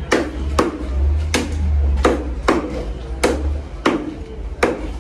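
Large fish-cutting knife chopping through a big fish into pieces on a wooden block: about eight sharp chops, roughly every half second to second, over a steady low hum.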